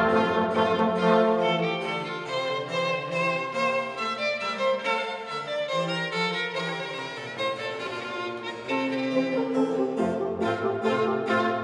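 Orchestral background music carried by bowed strings, with the low bass line dropping out in the middle and coming back in near the end.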